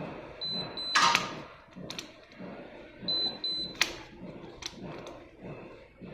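Fingerprint padlock giving a pair of short high beeps, followed by a sharp click of its shackle. This happens twice, about three seconds apart, with a few lighter clicks of handling between.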